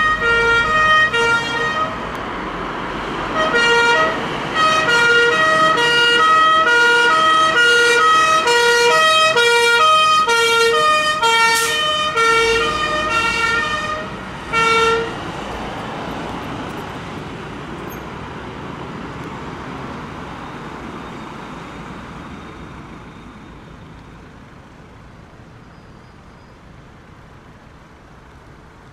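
Fire engine's siren alternating between two pitches as the appliance leaves the station, with a short break about two seconds in. It stops about halfway through, leaving engine and road noise that fades away.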